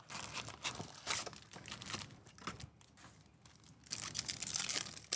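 Baseball card pack wrappers being torn open and crinkled, in a run of scratchy rustles that is busiest about four seconds in.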